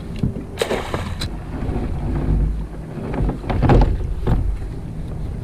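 Wind buffeting the microphone and water around a kayak, with a few short rustling, clattering bursts as a wire hoop crab net is handled and its rope is hauled in by hand.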